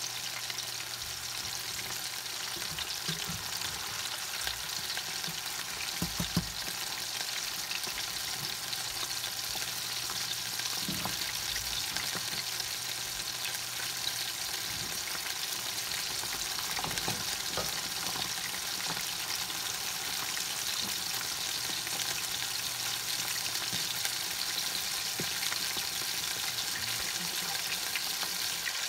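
Ground-pork burger patties sizzling steadily in butter in a skillet, still cooking through. A soft knock sounds about six seconds in.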